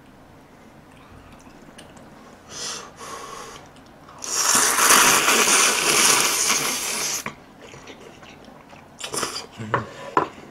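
Person slurping jjamppong noodles: a short slurp about two and a half seconds in, then a long, loud slurp lasting about three seconds. Wet chewing clicks follow near the end.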